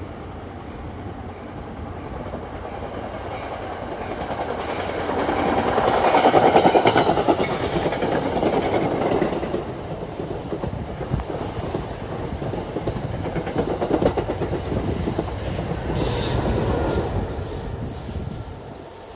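NJ Transit commuter train of Multilevel coaches passing close by: steel wheels rumbling and clicking over the rails, swelling to loudest about six seconds in and staying loud before easing off near the end. A thin, high wheel squeal on the curve comes in briefly around the middle.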